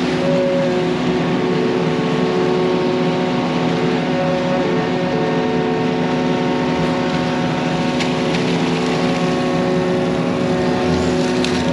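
Mini excavator engine running steadily at working speed, with a couple of faint clicks in the second half.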